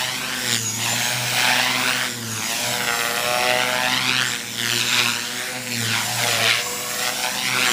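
Align T-Rex 450 Pro electric RC helicopter in flight on a 6S battery with Mavrikk rotor blades: the motor and gear whine and the buzz of the blades rise and fall in pitch and loudness every second or two as it manoeuvres through the air.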